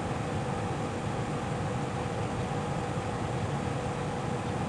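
A machine humming steadily, with a constant tone over an even hiss.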